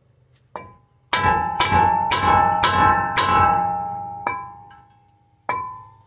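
Hammer blows on a seized wheel bearing hub assembly, struck to knock it out. The metal rings like a bell after each hit: six quick strikes at about two a second, then two more spaced apart.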